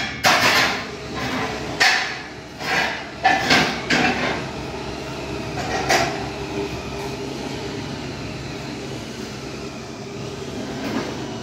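Knocks and clatters of household items being handled, about six sharp ones in the first six seconds, then a steady low hum.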